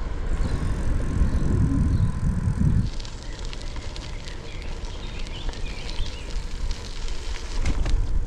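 Wind buffeting the microphone of a camera on a moving bicycle gives a heavy low rumble. About three seconds in it gives way to a quieter, crackling sound of bike tyres rolling over a loose gravel and dirt track.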